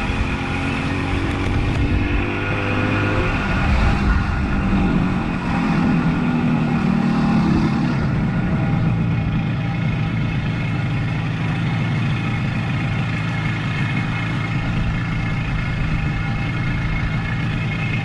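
1976 Suzuki GT185's two-stroke parallel-twin engine running under way. Its note changes over the first several seconds, then holds steady from about eight seconds in.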